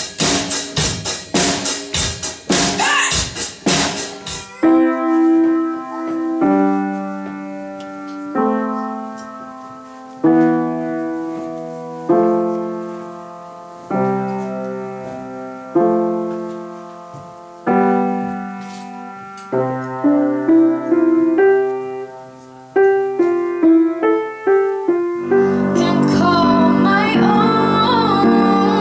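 Piano playing slow held chords, one about every two seconds, each left to ring and fade. It comes in after the last few seconds of a band's drum-driven rock accompaniment, and near the end a singer and fuller accompaniment begin.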